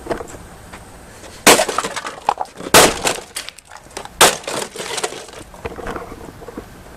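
An axe strikes a Mr. Coffee Keurig K-cup coffee maker three times, about a second and a half apart. Each blow cracks and breaks the machine, and smaller pieces clatter and rattle after it.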